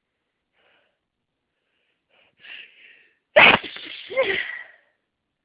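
A faint intake of breath about two and a half seconds in, then one loud, sudden human sneeze with a trailing tail. The sneeze is part of a hay fever sneezing fit before an antihistamine has been taken.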